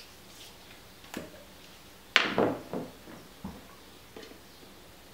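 Plastic handling sounds from a syringe and an oil bottle as the syringe is readied and filled with oil: a click about a second in, a sharp sound falling in pitch about two seconds in, then a few light knocks.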